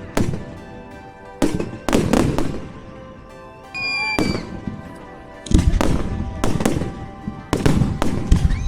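Fireworks display: a few sharp bangs that echo away, a short high whistle about four seconds in, then a rapid volley of bangs and crackles from about halfway.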